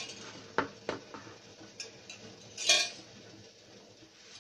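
Kitchen pots and utensils clinking: two sharp clinks about half a second and a second in, then a short noisy scrape near three seconds.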